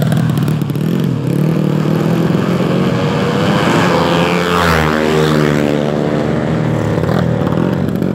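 Drag-race motorcycle engines running loud through open exhausts. Steady engine note at first, then about halfway through a racing bike passes close at full throttle, its pitch rising and then dropping as it goes by.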